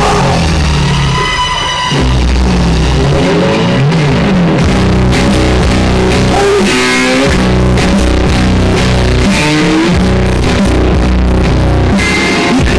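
Loud rock-style music with guitar, drums and a strong bass line.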